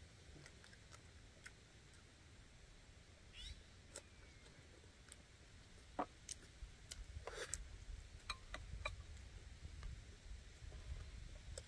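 Faint eating sounds: chewing and scattered small mouth and chopstick clicks, more frequent in the second half.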